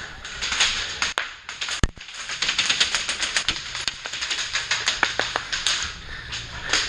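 Airsoft guns firing: rapid, dense clicking shots, scattered at first and then coming fast from about two seconds in. A single sharp thump comes just before the rapid firing starts.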